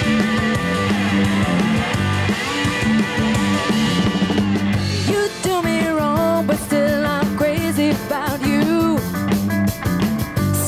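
Rock band playing with electric guitar, bass and drum kit, a woman's lead vocal coming in about halfway through.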